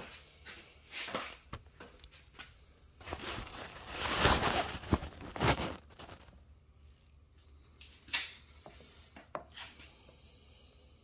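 Handling noises: scattered clicks and knocks, with a loud stretch of rustling and scraping about three to six seconds in, then a couple of sharp clicks.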